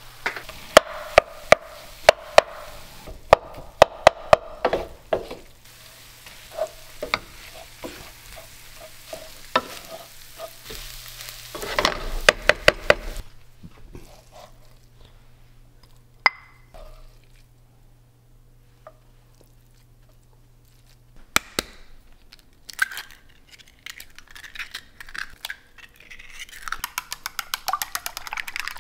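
Wooden spoon stirring and knocking against a frying pan of sizzling kimchi fried rice, with runs of sharp clacks in the first few seconds and again about twelve seconds in. Near the end, eggs being beaten quickly in a glass bowl give a fast run of light clinks.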